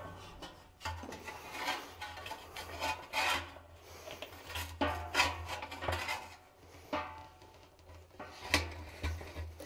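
Rubber bladder being worked out of a cut-open steel expansion tank by hand, rubbing and scraping against the tank's steel shell in irregular strokes, some of them squeaky.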